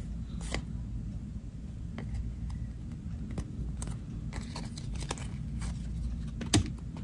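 2022 Donruss football trading cards being flipped through by hand, with faint ticks and clicks as card edges slide and tap together over a low steady hum. One sharper click comes near the end.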